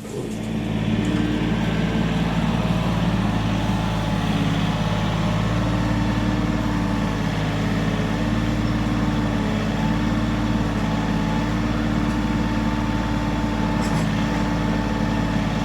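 An engine running steadily at one constant speed, coming in abruptly at the start and holding an unchanging pitch throughout.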